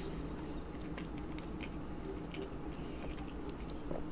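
Quiet chewing of grapes with the mouth closed: faint soft wet clicks and smacks, with a brief hiss about three seconds in.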